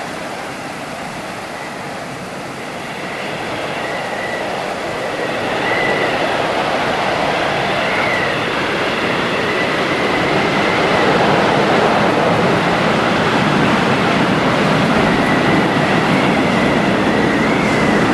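Hurricane wind roaring steadily, growing louder a few seconds in, with a faint wavering whistle above it.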